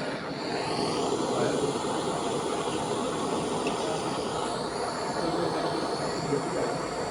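Steady running noise of a moving passenger train heard from inside the coach: wheels on the track with carriage rattle.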